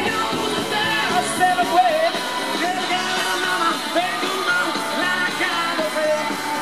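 Live rock trio playing: electric guitar, bass guitar and drum kit, with a man singing lead vocals over them.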